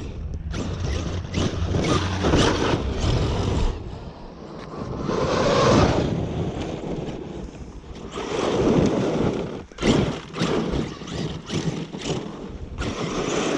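Arrma Kraton 8S electric RC monster truck driving over rough ground: its motor runs in repeated surges that rise and fade several times, with wind noise on the microphone.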